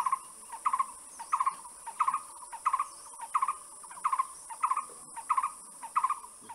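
A bird repeating a short call of a few quick notes, about every two-thirds of a second in a steady rhythm, over a steady high-pitched hiss.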